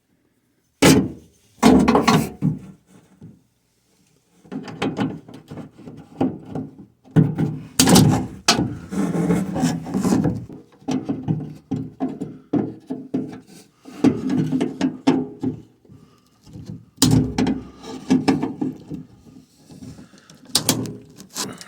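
A plastic piece inside a car door being worked and pried loose by hand: irregular rubbing and scraping, with several sharp knocks and thunks.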